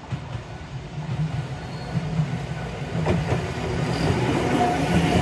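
Randen two-car tram (Mobo 624 and 625) approaching and rolling past, its wheels on the rails growing steadily louder as it nears. There is a sharp knock about three seconds in.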